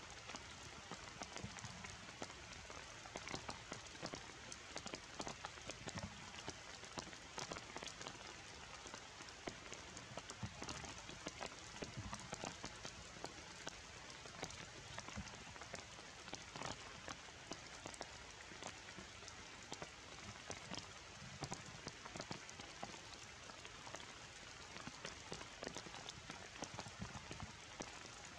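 Steady rain falling on forest leaves: an even patter with many separate drop hits.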